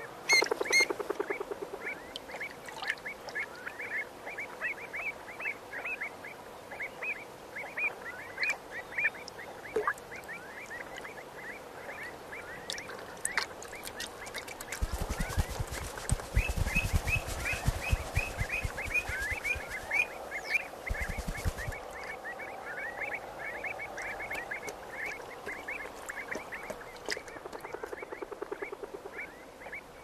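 Pied avocets giving a rapid string of short, sharp alarm calls, about three a second, as they warn off an intruder. A low rumbling noise comes in for several seconds about halfway through.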